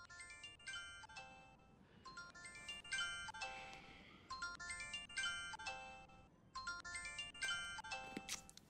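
A ringtone-like melody of short chiming notes playing from a mobile phone's speaker. Each phrase is a quick downward run of notes, repeating about every two seconds.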